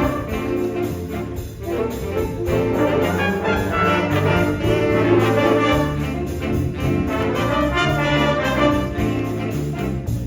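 Jazz big band playing with the brass section prominent over a steady low bass line.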